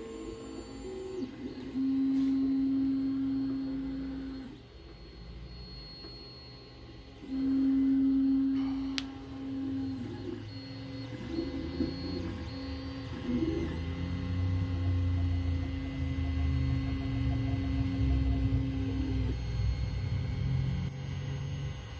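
Creality CR-X 3D printer's stepper motors whining in held tones that stop, start and change pitch as the print head moves while printing. Steady faint hum underneath, with a single sharp click about nine seconds in.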